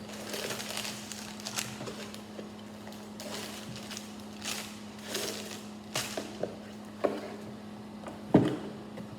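A cardboard Lego box being opened and its contents taken out: a run of short rustles and scrapes of cardboard and paper, with a sharp knock near the end as something is set down. A faint steady hum runs underneath.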